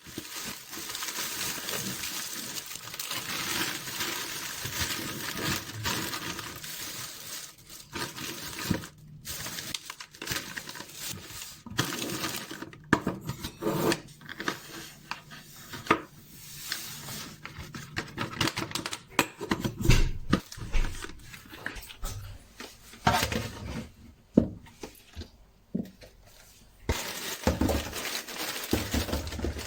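Kitchen work with dishes and cutlery: a steady hiss for the first several seconds, then irregular clinks and knocks of plates, utensils and cookware.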